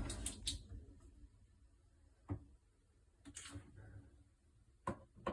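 A quiet room with the fridge switched off at the wall, broken by light handling rustle in the first second and a few separate faint clicks and knocks.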